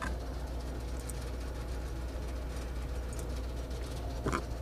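A steady low machine hum, with a few faint light clicks as a small fastener is worked into a roller-furler drum by hand.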